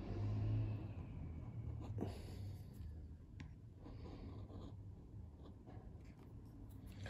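Flexcut palm gouge pushed through linoleum in short cutting strokes: soft scraping rasps with a few small clicks as the blade bites and lifts out of the lino.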